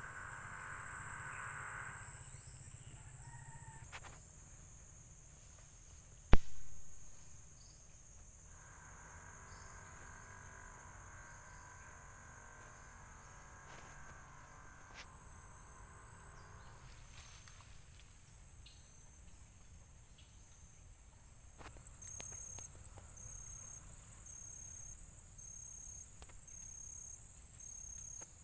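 Insects buzzing steadily in tropical forest with a high, thin whine. From about two-thirds of the way through, a high pulsed call repeats roughly once a second. A single sharp knock about six seconds in.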